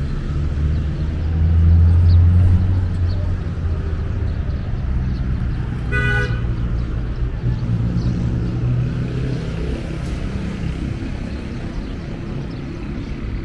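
Road traffic with vehicle engines running, one engine passing close and loudest about two seconds in. A car horn gives one short toot about halfway through.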